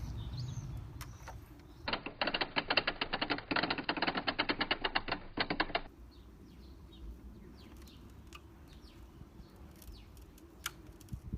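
A rapid run of sharp mechanical clicks, about ten a second, lasting about four seconds, starting about two seconds in. Faint birdsong before and after.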